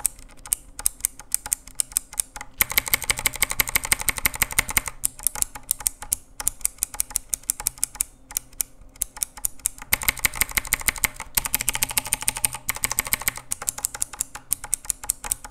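Rampage KB-R77 mechanical keyboard with Outemu Blue clicky switches being typed on close up, its keys fitted with silicone O-ring dampeners: the bottom-out strike is softened while each switch's click still sounds. Two runs of fast typing, about two and a half seconds in and again around ten seconds, with slower single keystrokes between.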